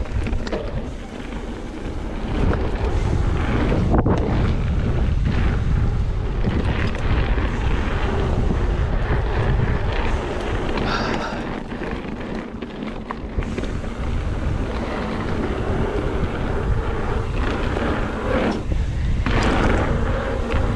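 Wind buffeting the camera's microphone while riding a Specialized Stumpjumper mountain bike along a dirt trail, over a steady rumble of tyres on the ground, with a few sharp knocks.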